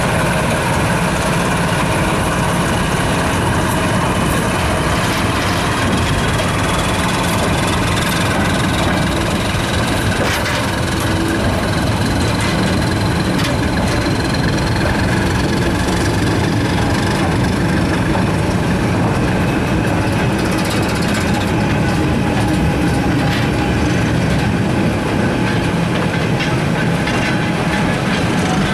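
Diesel train running steadily: a constant engine drone mixed with rail noise and occasional clicks. A whine rises slowly during the first half.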